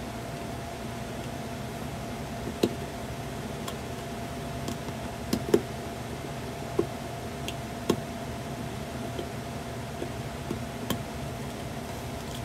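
Scattered small, sharp clicks and knocks, about ten in all, from a screwdriver and the plastic parts of a toy's voice box being handled while it is unscrewed, over the steady hum of an electric fan.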